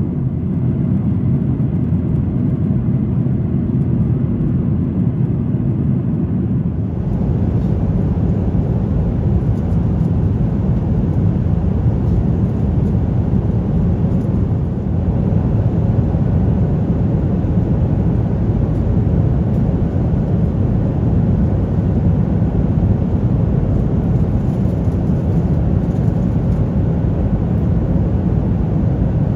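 Steady cabin noise of a Boeing 737-900ER in flight: a constant low rush of airflow and CFM56-7B engines heard from inside the cabin. About seven seconds in, the sound gains more hiss.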